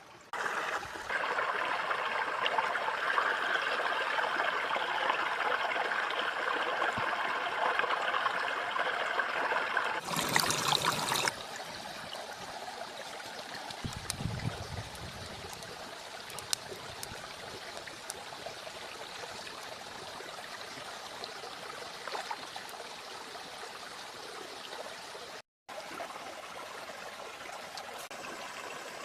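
A stream of water running with a steady rush. It drops to a lower level about eleven seconds in, and it cuts out for a moment near the end.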